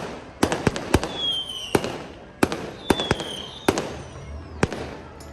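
Fireworks display: a string of a dozen or so sharp bangs at irregular intervals, with two short falling whistles about one and three seconds in.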